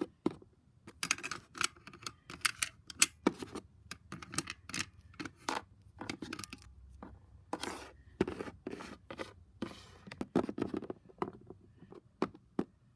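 Irregular clicks, taps and scrapes of small plastic toy figures being handled and shuffled along a hard surface.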